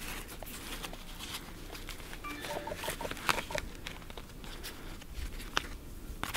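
A bulletproof fabric panel and its cover rustling and crinkling as the layers are handled and pulled apart by hand, with scattered small clicks.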